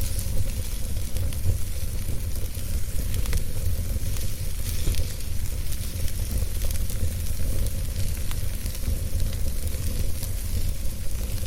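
Wood fire crackling in a fireplace, with scattered sharp pops over a steady low rumble.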